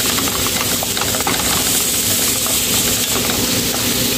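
Fatty pork, onions and ginger sizzling in oil in a nonstick pan: a steady hiss with many small crackles, as a wooden spatula stirs and scrapes the pieces around the pan.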